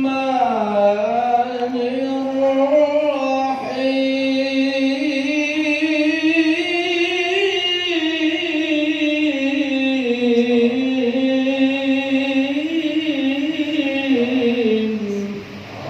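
Male Qur'an reciter chanting in the drawn-out tilawah style: one long melismatic phrase whose pitch wavers slowly up and down, held for about fifteen seconds and breaking off near the end.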